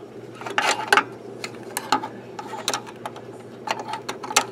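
Irregular sharp clicks and ticks of small metal parts and a tool being worked by hand inside an opened reel-to-reel tape deck chassis, as the bellows sub-assembly is worked loose, over a low steady hum.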